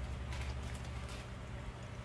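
A few light clicks and taps from parts and tools being handled during CV axle boot work, over a steady low rumble.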